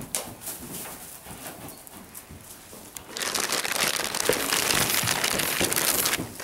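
Muffled hoofbeats of a horse moving on soft arena dirt, faint and irregular. About three seconds in, a loud rustling hiss starts and covers them for about three seconds, then stops.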